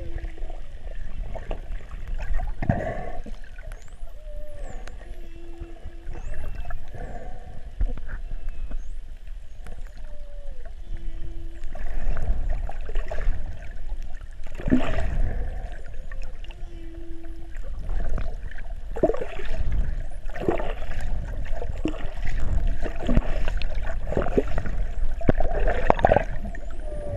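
Humpback whale song heard underwater: a short low moan repeating about every six seconds among higher gliding calls, with faint high whistles from dolphins. Bursts of rushing water noise grow louder through the second half.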